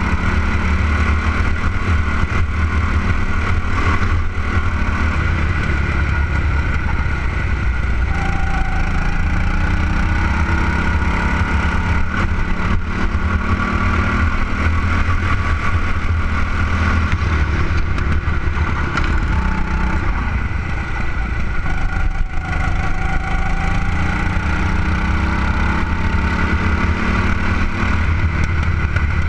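Go-kart's small engine running under race load, heard from on board the kart, its pitch dipping and rising a few times through the laps.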